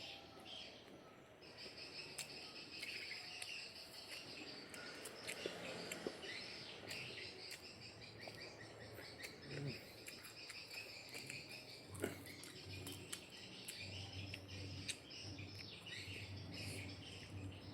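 Faint insects chirring steadily, with birds calling, and scattered sharp clicks, one louder about twelve seconds in.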